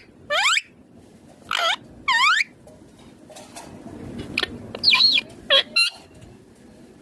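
Indian ringneck parakeet calling: three loud, short calls that each sweep downward in pitch in the first two and a half seconds, then a quick run of shorter, varied chirps around five seconds in.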